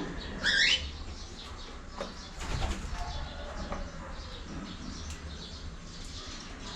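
Cockatiel giving one loud, swooping call about half a second in, followed by a brief rustling flurry about two and a half seconds in and a few faint chirps.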